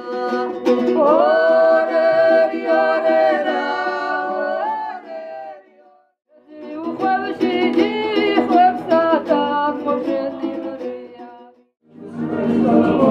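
A woman singing two long phrases with a short break between them, to a strummed panduri, the small Georgian long-necked lute. Near the end it cuts to a different, denser stretch of music.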